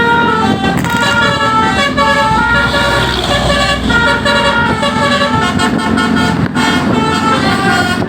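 Bus 'basuri' telolet horn, a multi-trumpet musical air horn, playing a quick tune of stepped notes without a break, over the low rumble of the bus.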